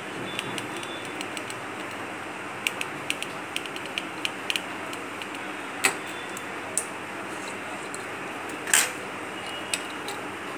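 Small sharp clicks and taps of metal tweezers and a soldering iron against a mobile phone's circuit board and display flex cable. They come at irregular moments, the loudest and slightly longer one about nine seconds in, over a steady background hiss.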